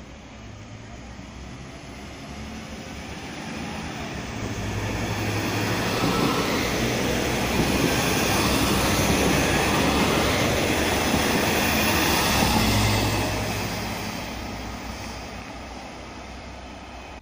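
Alstom Coradia LINT diesel multiple unit passing close by: the running of its diesel engines and the rumble of its wheels on the rails build up, hold loud for several seconds, then fade away.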